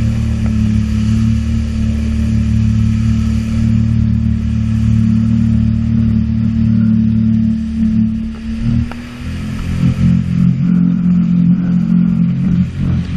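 Sea-Doo jet ski engine running at a steady throttle, its note dipping briefly about nine seconds in and then coming back uneven and choppy.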